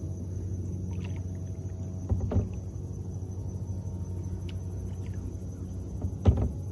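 Kayak paddling on calm water: a couple of paddle strokes about two seconds in, and a sharp knock near the end, over a steady low hum.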